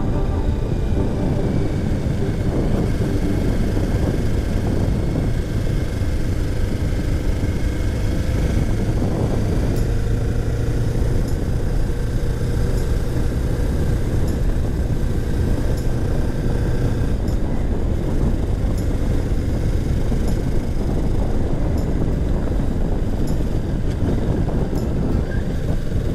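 Motorcycle engine running steadily at cruising speed, with wind and road noise; its note shifts a little about two-thirds of the way through.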